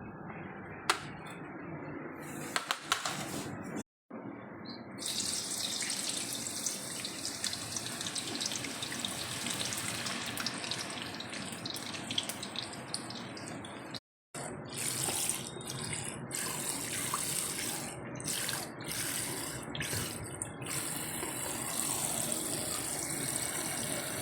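Water running from a tap into a sink, louder and hissier from about five seconds in, with a few clicks and knocks near the start. The sound drops out completely twice for a moment.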